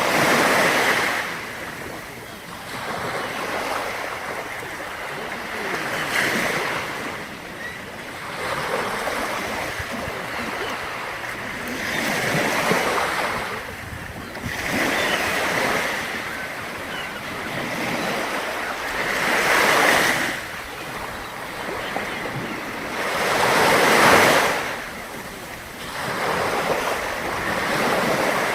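Sea waves breaking on the shore, the surf swelling and falling away every few seconds, with the biggest breakers about every six seconds.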